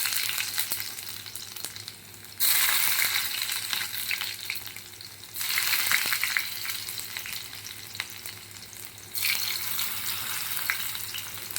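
Garlic and cumin seeds sizzling in hot ghee for a tarka. The sizzle swells up sharply three times and dies back between.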